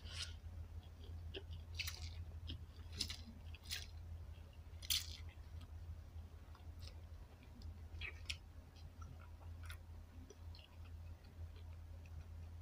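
A person slurping and chewing spicy instant noodles, with short, irregular wet mouth sounds over a steady low hum.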